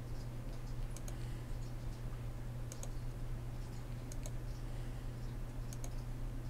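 Computer mouse clicking as anchor points are placed with Illustrator's pen tool: four short double clicks, each a press and release, about a second and a half apart, over a steady low hum.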